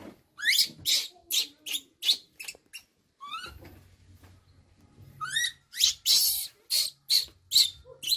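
Baby macaque screaming in quick, high-pitched, rising calls, about three a second, in two runs with a short pause between. These are the distress cries of an infant left alone by its caregiver.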